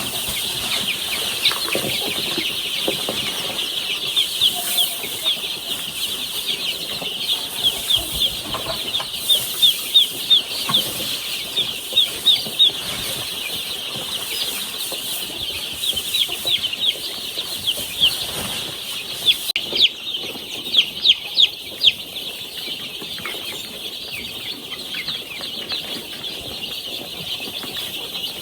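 A flock of young chicks peeping continuously, many high, short chirps overlapping, with a few louder peeps standing out now and then.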